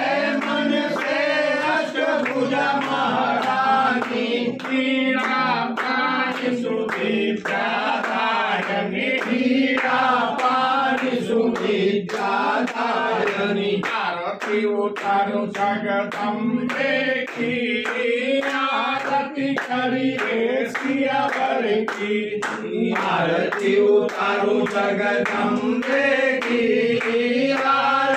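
A group of voices singing a Hindi devotional aarti together, with steady hand-clapping keeping time.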